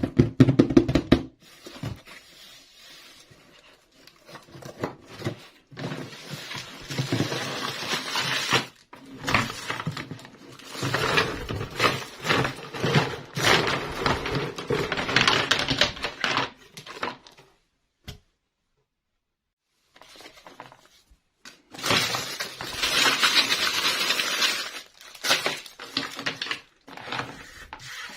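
Small plastic toy pieces and packaging being handled and unpacked: rapid clicking, clattering and crinkling in long stretches, with scattered knocks and a brief dead-silent break about two-thirds in.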